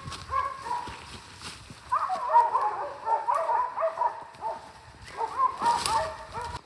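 A pack of West Siberian Laika hunting dogs barking at a treed black bear, a few barks at first, then many short barks overlapping from about two seconds in.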